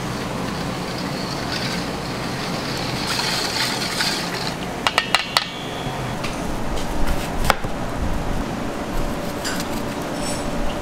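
Wire whisk stirring sauce in a large stainless steel bowl: a scraping hiss, then a quick run of sharp metal clinks about halfway through and one more a couple of seconds later, over a steady kitchen hum.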